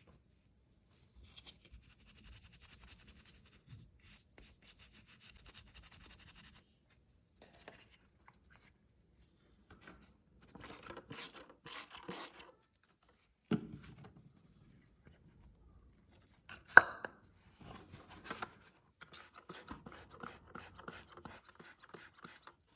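Hand-tool restoration work: bouts of scraping and rubbing strokes, with two sharp knocks, the second louder, a little past halfway. Near the end comes a run of quick, even strokes, about four a second.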